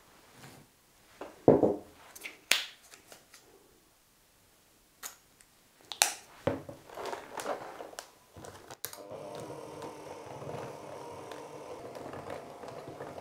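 Clicks and knocks of small glass dishes and a jar as powdered sugar, butter and vanilla paste are tipped into a bowl. From about nine seconds in, a KitchenAid electric hand mixer runs steadily, its beaters whipping the butter and sugar into buttercream.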